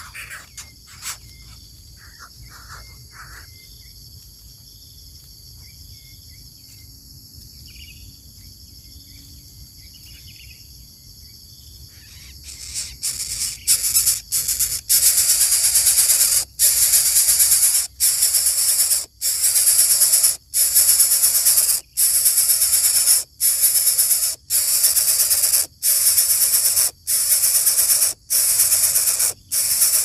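Greater coucal nestlings hissing: loud, rough hisses repeated about every second and a half, starting about halfway through. Before that there is only a faint, steady high-pitched hum and a few soft chirps.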